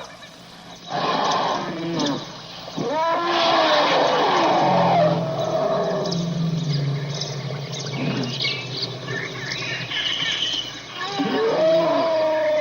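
Animal calls: long, pitched calls that rise and then fall, a few seconds apart.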